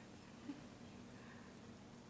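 Near silence: room tone with a faint steady low hum and one tiny soft tick about half a second in.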